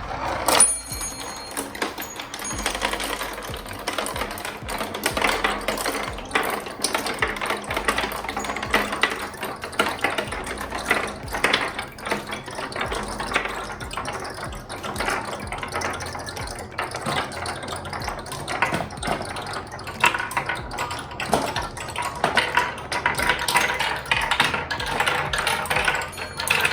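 A pack of marbles rolling and clattering down a marble-run track, a dense stream of rapid clicks that grows a little louder near the end.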